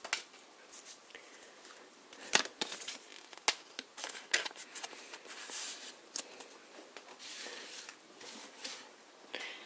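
Magic: The Gathering cards being handled and sorted on a table: scattered light clicks and short crisp rustles as cards are slid and stacked.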